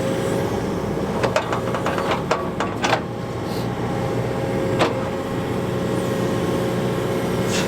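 Excavator's diesel engine and hydraulics running steadily with a constant whine, and a few sharp clanks scattered through the first half and once more about five seconds in.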